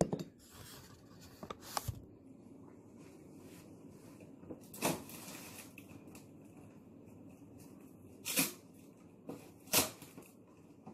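Several sharp knocks and clatters of kitchen handling at irregular intervals, over quiet rustling.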